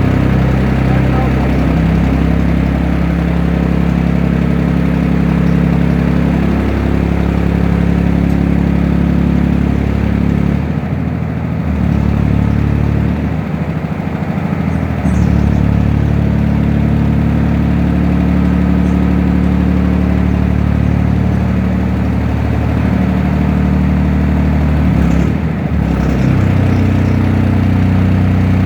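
Engine driving the hydraulic pump of a vehicle-mounted solar pile driver, running steadily under hydraulic test, its pitch stepping up and down several times as the load changes, with a few brief dips.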